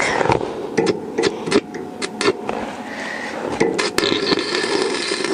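Stick (MMA) welding arc on a steel wheelbarrow frame: a few sharp clicks and short crackles as the electrode is struck, then from about three and a half seconds in the arc holds and crackles steadily.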